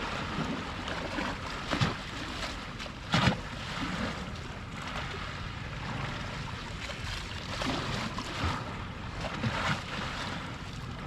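Small sea waves lapping and splashing at the water's edge, with a steady low wind rumble; the loudest splashes come about two and three seconds in.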